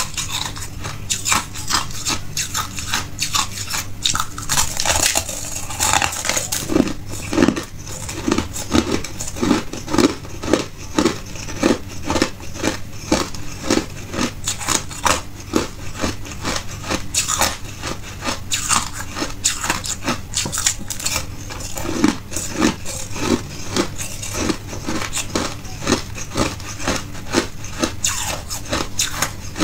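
A person biting and chewing hard ice, a dense run of sharp crunches throughout. For a stretch in the middle the chewing falls into a steady beat of about two crunches a second.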